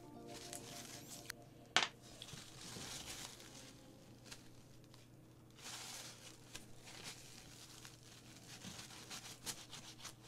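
Paper kitchen towel crinkling and rustling as it is rubbed along a thin metal paint-mixing stick to wipe off thinned paint, with small clicks and one sharp click about two seconds in.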